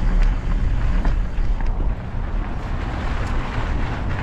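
Wind buffeting the action camera's microphone as a Specialized Epic Evo mountain bike rolls over a dirt and gravel trail, with tyre crunch and scattered sharp rattling clicks from the bike over rough ground.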